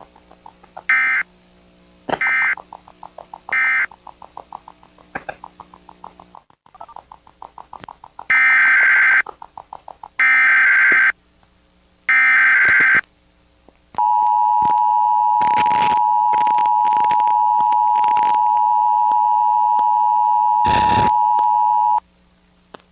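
Emergency Alert System tones: three short data bursts with a rapid ticking between them, then three longer, harsh digital data bursts about a second apart (the SAME header), then the EAS two-tone attention signal held steady for about eight seconds, crossed by several short bursts of noise, before it cuts off.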